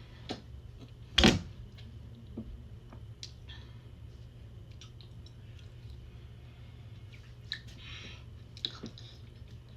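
A person eating soft-serve ice cream: scattered small clicks and mouth sounds, with one sharp knock about a second in. A steady low hum runs underneath.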